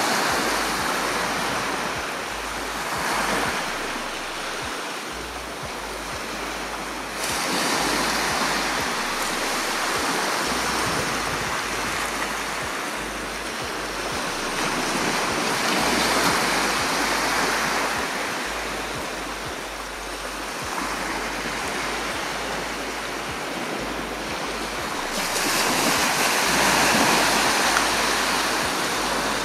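Small Mediterranean waves breaking and washing up a sandy beach, the surf swelling and falling back every few seconds, with louder breakers about seven seconds in and again near the end.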